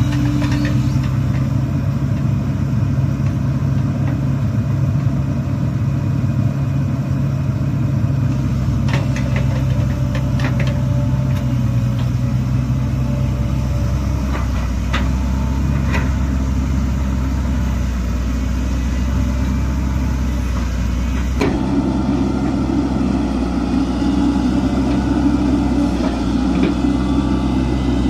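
Excavator's diesel engine running steadily, with a few light knocks. The engine sound changes abruptly about two-thirds of the way through.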